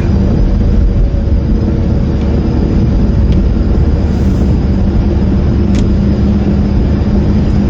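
Car cabin while driving: steady engine and road drone carrying the car's persistent squeaking noise, which the owner suspects comes from a failing part in the fuel line.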